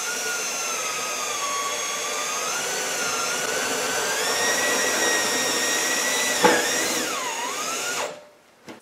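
Power drill driving a self-tapping (Tek) screw into a metal fuel tank. Its motor whine runs steadily and rises slowly in pitch, with a sharp click about six and a half seconds in, then a dip in pitch before it stops about a second before the end.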